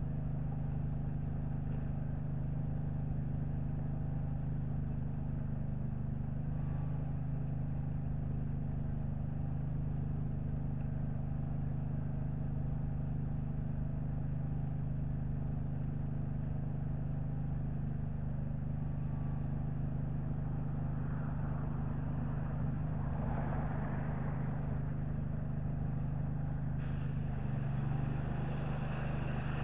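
An engine runs steadily at a constant speed throughout. From about two-thirds of the way in, a pressure-washer spray hisses in bursts against the tractor's rear wheels.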